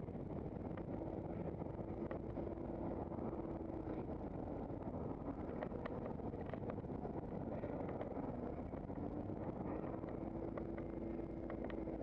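Steady rumble of road travel with a faint hum that drops in pitch briefly about eight to nine seconds in and then comes back, and a few faint ticks.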